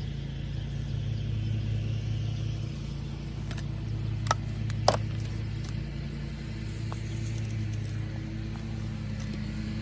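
A steady low motor hum, like an engine running, with two sharp clicks a little over half a second apart near the middle.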